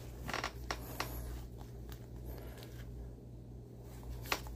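Hockey trading cards being handled and slid against one another in gloved hands: a few soft scrapes and light taps, with a sharper tick near the end, over a low steady hum.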